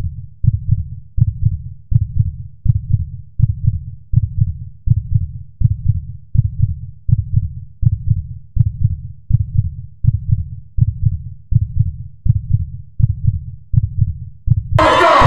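Heartbeat sound effect: deep double thumps, about two a second, evenly repeated. Near the end it cuts suddenly to a concert crowd cheering and shouting.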